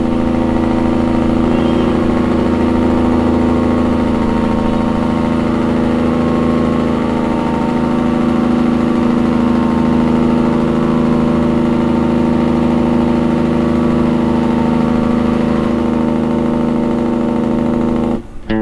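Vehicle engine droning at a steady speed while driving through a road tunnel, one even pitch held throughout, with the tunnel walls close around it. The drone cuts off suddenly near the end.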